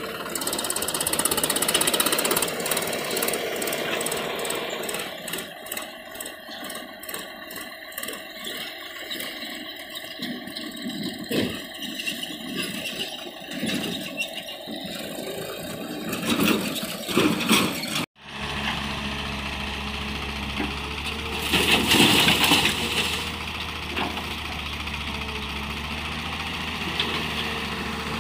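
Diesel engines of a farm tractor and an excavator running. The first part is irregular and rattly; after an abrupt change a steadier low engine hum takes over, with a louder stretch a little past the middle.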